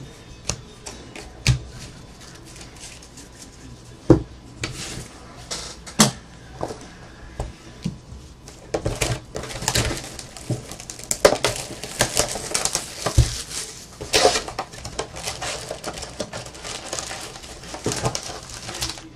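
Hands handling a shrink-wrapped trading-card box: a few separate taps and knocks, then from about nine seconds in a long stretch of crinkling and rustling as the wrap comes off and foil packs are pulled out of the cardboard box.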